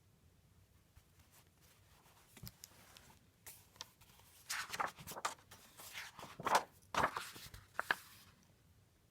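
Paper rustling and light handling noises, as of a picture book's pages being handled and turned: a series of short, irregular scratchy rustles and soft taps that start a couple of seconds in and stop shortly before the end.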